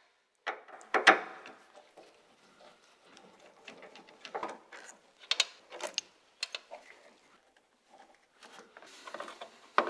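Small clicks and rattles of wire spade terminals being pulled off and pushed onto a tractor voltage regulator and of the regulator's metal case being handled. The loudest click comes about a second in, followed by scattered lighter taps.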